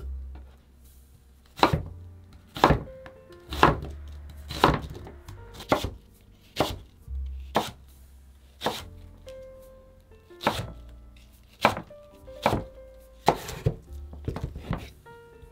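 A knife chopping on a cutting board in slow, even strokes about once a second, with a short pause about nine seconds in. Background music plays underneath.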